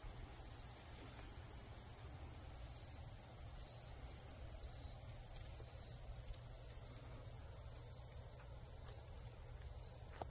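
Faint, steady high-pitched trilling of insects, cricket-like, pulsing evenly throughout, over a low rumble.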